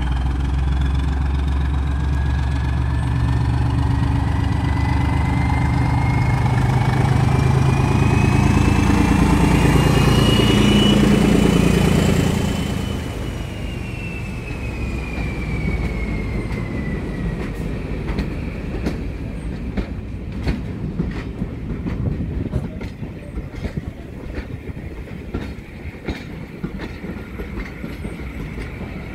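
Class 14 diesel-hydraulic locomotive D9526 approaching and passing close by, its diesel engine running loudest as it goes past, with a thin whine that rises in pitch and then falls away. Its coaches then roll past more quietly, their wheels clicking over the rail joints.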